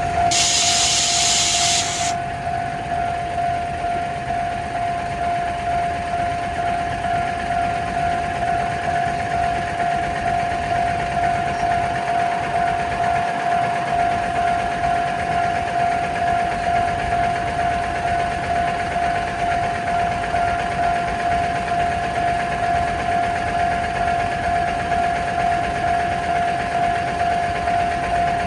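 Japanese railroad crossing warning bell ringing in an even, repeated pulse on one steady pitch. A passing train's noise cuts off about two seconds in, and the bell keeps ringing after it.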